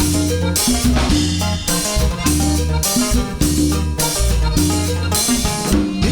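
Instrumental break of a cumbia song: drum kit and bass keep a steady beat, with other instruments playing over them and no singing.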